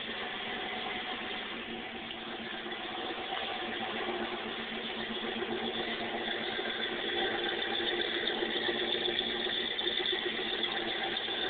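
1965 Ford Mustang's 289 V8 idling steadily, heard through a cellphone microphone; it grows louder in the second half as the phone comes round to the rear, near the tailpipes.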